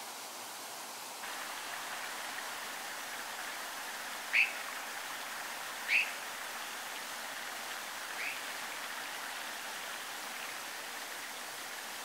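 Steady rush of a fast stream, growing a little louder about a second in, with three short, sharp bird calls, the last one fainter.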